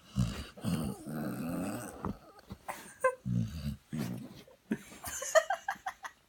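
Sleeping springer spaniel snoring with low, growly rumbles, several breaths in a row, the longest about a second in. Near the end come a few shorter, higher-pitched sleep noises.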